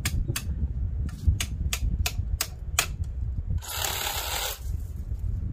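Hand tools clicking and tapping on metal at an old car's front wheel, a run of sharp irregular clicks about three a second. About three and a half seconds in comes a hiss lasting about a second.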